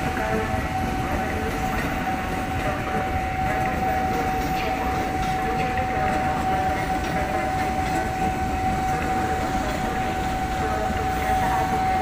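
An electric commuter train (KRL) rolling slowly past, its wheels and running gear making a steady rumble. A steady high tone that never changes pitch sounds over the rumble.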